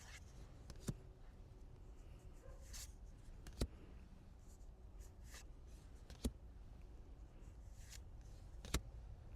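Cards being handled: soft sliding and rustling, with four sharp taps evenly spaced about two and a half seconds apart.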